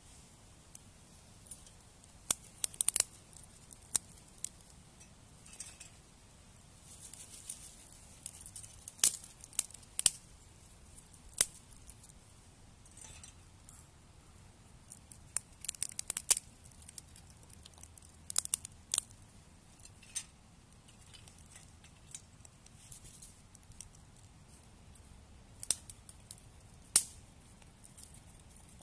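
Small twig fire crackling in a metal twig stove: scattered, irregular sharp pops and snaps, some much louder than others, as sticks burn and more are added.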